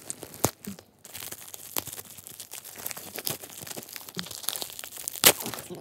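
Bubble-wrap packaging crinkling and crackling as it is squeezed and torn open by hand, in irregular bursts, with one sharp, loud crack near the end.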